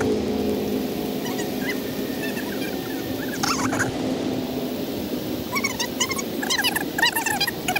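Short, high, arching whining calls from an animal, repeated several times a second and growing busier in the last couple of seconds, over a low steady hum that fades out early.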